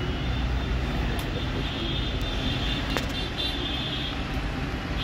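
Steady rumble of street traffic from the open shopfront, with a few sharp clicks as the phone box's seal is peeled off and handled.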